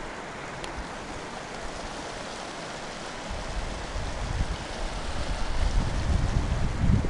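Shallow river water running over rocks and gravel, a steady rushing. From about three seconds in, wind gusts buffet the microphone with low rumbles that grow louder toward the end.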